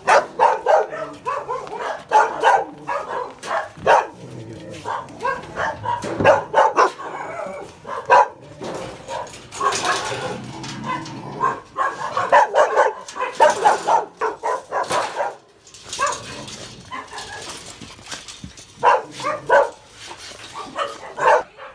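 Several dogs barking in repeated, overlapping bursts, with a lull of a couple of seconds late on.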